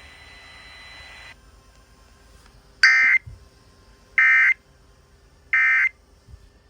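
Emergency Alert System SAME digital data tones: three identical buzzy, screechy bursts, each about half a second long and a little over a second apart. A faint hiss ends about a second in.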